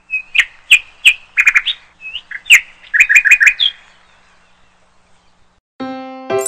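Bird chirps and tweets, short calls, some in quick runs of four or five, stopping after about four seconds. Electric piano music starts near the end.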